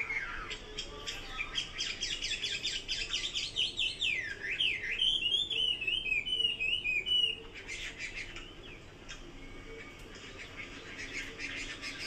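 Chinese hwamei (melodious laughing thrush) singing: quick chattering notes, then about four seconds in a loud run of sweeping, repeated whistled phrases that stops suddenly about seven seconds in, followed by softer quick chirps.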